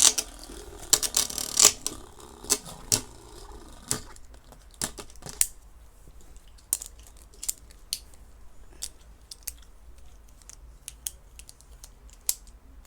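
Irregular sharp plastic clicks and taps as Beyblade parts are handled and adjusted. They come thick and fast over the first few seconds, then thin out into scattered single clicks.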